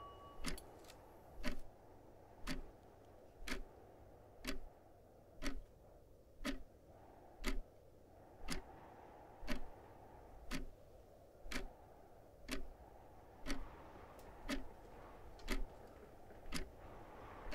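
Clock ticking steadily, about once a second, over a faint low background hiss.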